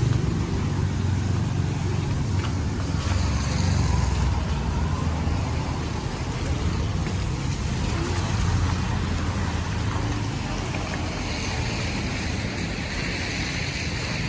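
Steady street noise: a continuous low traffic rumble with an even hiss over it.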